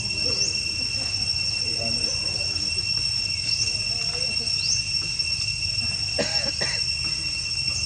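Steady high-pitched drone of insects, with a short rising chirp repeating every second or so. Faint calls sound underneath, one louder about six seconds in.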